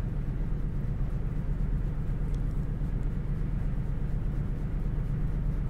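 Steady low background hum of room noise, with faint scratching of a blue ballpoint pen hatching shading lines on card.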